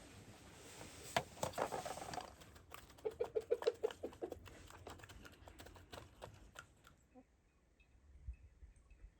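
Chickens pecking and scratching: a patter of light clicks, with a quick run of short pulsed clucks about three seconds in, after which it fades.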